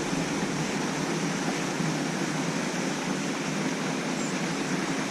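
Steady rushing of moving water, an even hiss with no separate splashes.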